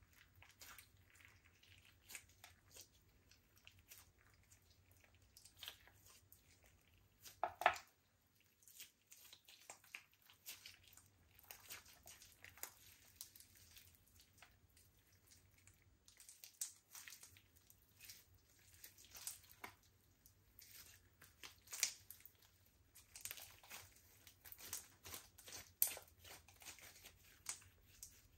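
Slime being mixed and squished: a run of faint sticky clicks, pops and crackles, with one louder squelch about seven and a half seconds in.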